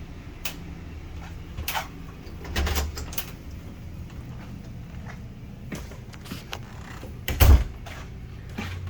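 A door inside an RV being handled: several light clicks and knocks, with a louder thump about seven and a half seconds in.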